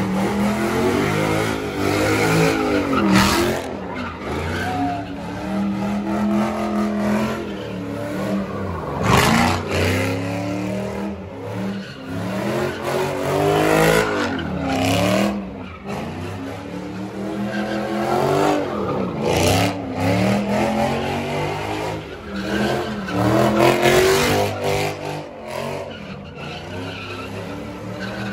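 Car engine revving up and down over and over, with tyres skidding and squealing, as at a street takeover.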